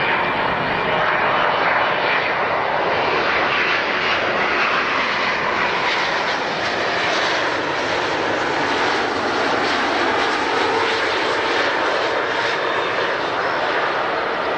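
Jet airliner engines running, a loud, steady rush of noise that holds its level throughout.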